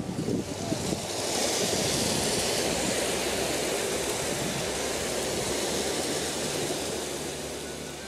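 Small river rushing over stones in shallow rapids below a little waterfall: a steady noise of fast-flowing water that grows louder about a second in.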